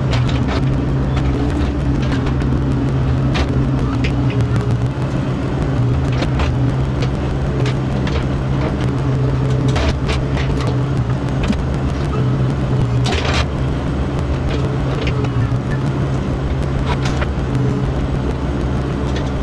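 Mini excavator's diesel engine running at a steady speed, with scattered knocks and clanks as it works the boulders.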